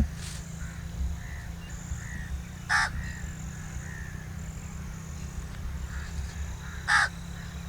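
A crow cawing twice, two short harsh calls about four seconds apart, over a low steady hum.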